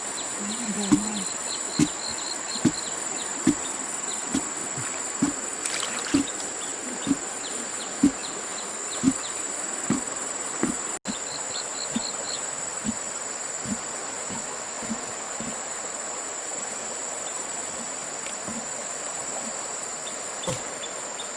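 Insects chirring in a steady, high drone, with a run of dull thumps about once a second through the first half that grow sparser later on.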